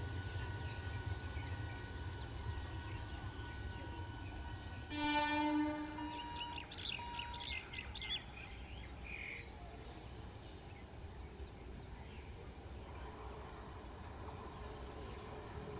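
A single train horn blast of about a second, a few seconds in, followed by birds chirping; under it a steady low rumble, and the rumble of an approaching train begins to build near the end.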